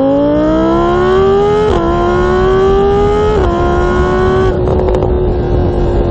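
An engine revving up, its pitch climbing and dropping back twice like an engine shifting up through gears, then holding a steady pitch.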